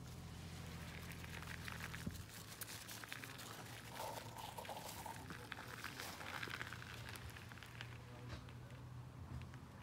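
Faint crunching of loose gravel under a small dachshund's paws and nearby steps: a scattered patter of small crackling clicks over a low steady hum.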